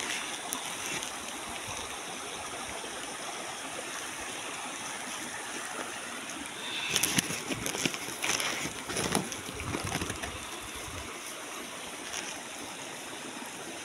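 Stream water running steadily, with a short spell of rustling and sharp clicks from about seven to ten seconds in.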